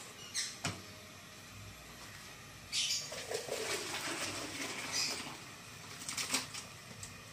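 Hot cooking water poured off boiled bamboo shoots from a steel pot into the sink. A couple of light metal clinks as the pot is handled, then about three and a half seconds of splashing pour starting some three seconds in.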